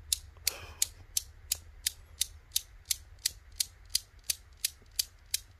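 Chrome steel balls of a 7-ball Newton's cradle clicking as the end ball strikes the row, sharp metallic clicks at a steady beat of about three a second.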